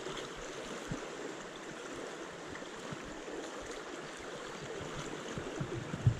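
Steady rush of a shallow stream's current running over a riffle, with a few brief low bumps, the loudest near the end.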